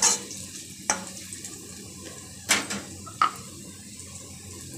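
A spatula scraping and knocking against a kadai while stirring onions and spices frying in oil: four sharp scrapes in the first three and a half seconds, the third the longest. Under them, and alone near the end, the faint steady sizzle of the frying.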